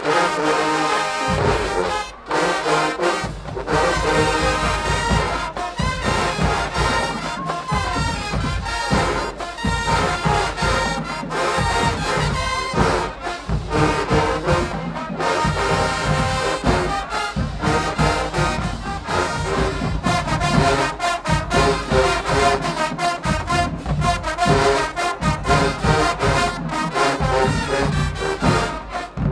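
High school marching band playing loudly: a full brass section led by trombones and trumpets over bass drums.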